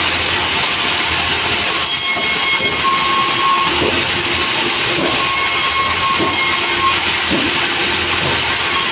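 Sawmill running as it cuts timber: a loud, steady mechanical noise with a faint high whine that comes and goes.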